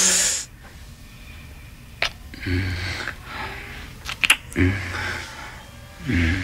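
Two people kissing: breathing hard with three soft hummed moans, and a few sharp wet lip-smacking clicks.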